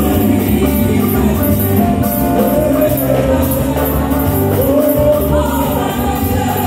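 Live amplified gospel singing: a male lead vocalist and female backing singers sing through microphones over a steady instrumental accompaniment with a sustained bass line.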